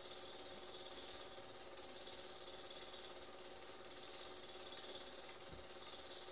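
Cine film projector running: a fast, steady mechanical clatter over a constant motor hum.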